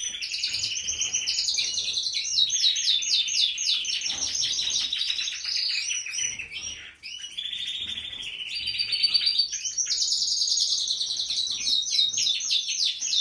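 Canaries singing: fast trills and rapidly repeated chirping notes, with a short break about seven seconds in.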